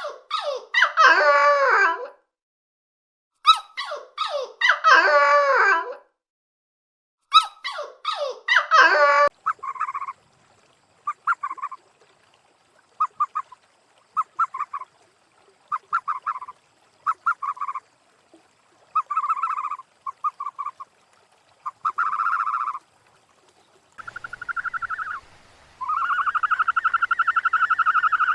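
A series of animal calls: three identical wavering calls in the first nine seconds, then a string of short clipped calls, and two long drawn-out calls near the end.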